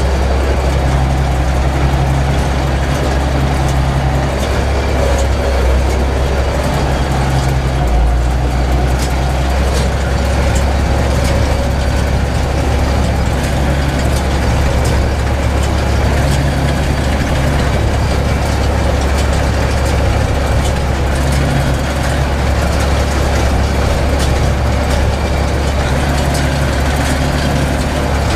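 Zetor 12145 tractor's six-cylinder diesel engine running steadily, heard from inside the cab while it pulls a straw baler, with faint rattling over the deep engine hum.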